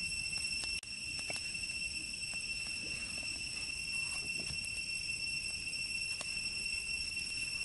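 Steady high-pitched drone of insects, with scattered light taps of a knife cutting a tomato on a wooden chopping board.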